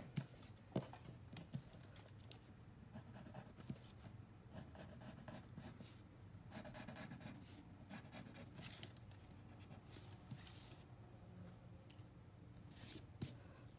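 Drawing on paper: faint, intermittent scratching strokes of a pencil or pen.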